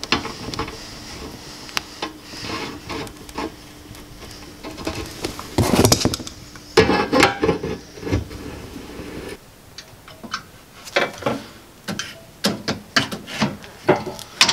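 Workshop handling noises: scattered metal clicks and taps with rubbing as an adjustable wrench works the thermostat-bypass fitting on an aluminium transmission cooler resting on a cardboard box, with a louder scrape about six seconds in.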